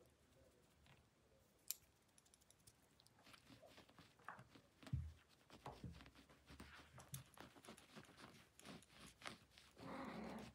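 Faint, irregular rustling and light clicking of a ragdoll kitten pawing and scrabbling at a finger on a fleece blanket. There is a soft thump about halfway through and a brief, louder rustle near the end.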